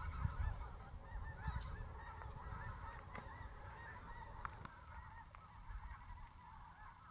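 Mixed flocks of snow geese and greater white-fronted geese calling in flight overhead: a dense chorus of many overlapping short honks that thins and fades toward the end.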